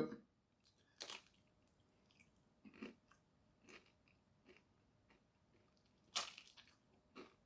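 Tortilla chip dipped in guacamole being bitten and chewed, a few faint crunches with the loudest about six seconds in.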